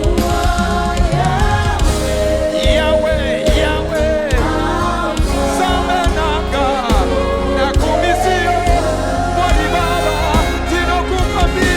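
Live gospel praise-and-worship music: sung melody lines with vibrato over a steady band accompaniment.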